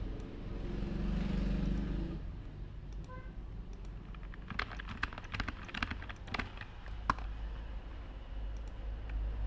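Computer keyboard typing: a quick run of keystrokes about halfway through, over a steady low background rumble.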